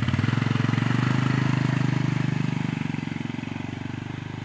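Stihl chainsaw's two-stroke engine idling with a fast, even putter, just after being started; it eases off slightly about halfway through.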